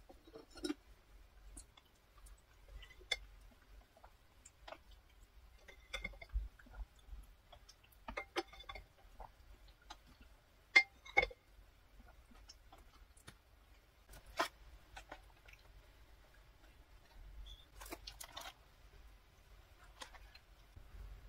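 Quiet eating sounds: a wooden spoon scooping cream pasta sauce from a ceramic plate, with scattered short taps, scrapes and sipping mouth sounds. Near the end a paper box is handled with a brief rustle.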